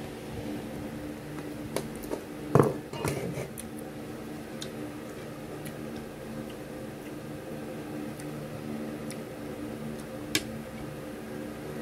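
Eating at a plate by hand: scattered sharp clicks and knocks of fingers and food against the dish, the loudest about two and a half seconds in and another near the end, over a steady low hum.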